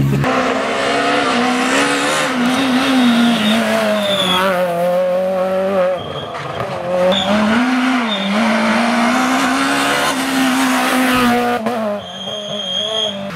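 Renault Clio rally car's four-cylinder engine at high revs, the pitch rising and dropping as it changes gear, with a few brief tyre chirps. About a second and a half before the end the engine falls away and a thin high-pitched whine is left.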